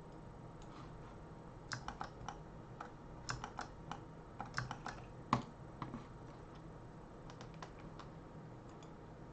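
Computer keyboard being typed on: irregular runs of sharp key clicks through the first two-thirds, the loudest a little past the middle, over a faint steady hum.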